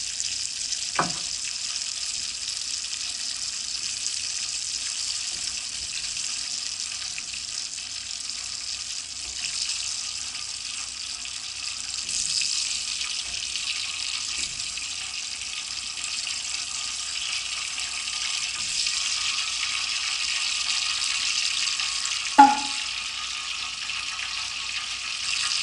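Steady sizzling hiss of hot oil as flour-coated leopard plant (tsuwabuki) shoots deep-fry in a pot. There is a short clink about a second in and a louder ringing clink near the end.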